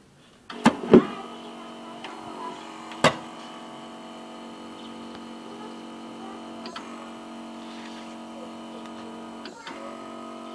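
Electric starter of a Tasco KB 250 thermal fogging machine, held on and buzzing steadily. There are a few sharp knocks or pops in the first three seconds and a short break in the buzz near the end.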